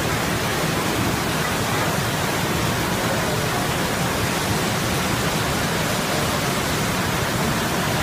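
Large waterfall in full flow: a steady, loud rush of water pouring down onto rocks.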